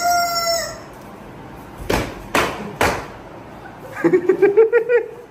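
A toy mouth whistle gives one short honk, then a leather belt lashes three times, sharp slaps about half a second apart. About four seconds in come roughly a second of rapid stuttering squeaks.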